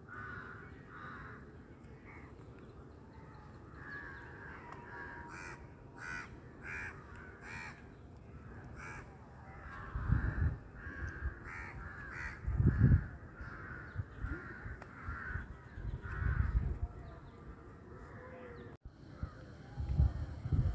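Crows cawing again and again, with a few loud low rumbles of wind buffeting the microphone about halfway through and near the end.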